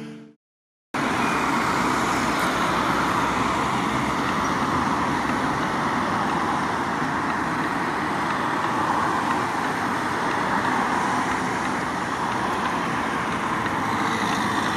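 Steady city street traffic noise, an even continuous rush with no single event standing out, starting after a brief silent cut at the very beginning.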